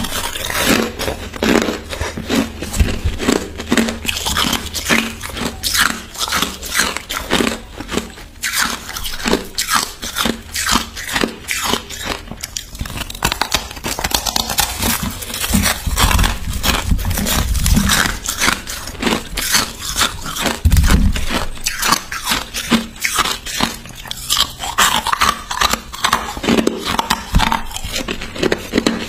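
A person biting into and chewing hard frozen crushed ice: a dense, continuous run of sharp cracks and crunches, with a few heavier crunching bites in the middle.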